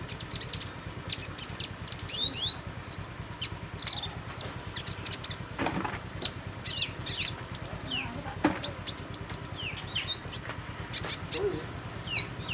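Small songbird chirping and whistling: a fast, busy run of short high notes, many of them quick rising or falling glides, with a low steady hum underneath.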